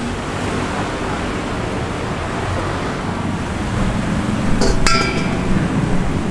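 Steady background hiss with a short ringing metallic clink and clatter about four and a half seconds in, like metal striking metal.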